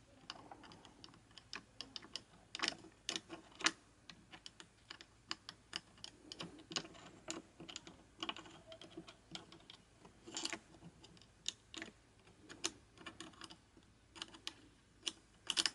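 Irregular light clicks and ticks of an open airsoft electric gun gearbox from a Tokyo Marui MP5 being turned by hand: the sector gear's teeth catch and run along the piston's rack as the piston's angle of engagement is checked.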